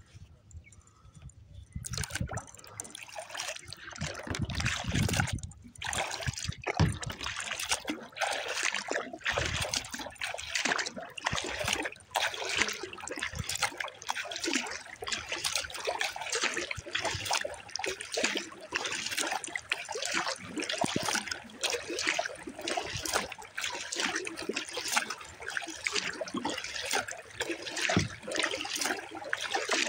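Lake water splashing and trickling against a paddled Pelican Argo 100XR kayak: a steady run of small, irregular splashes that starts about two seconds in.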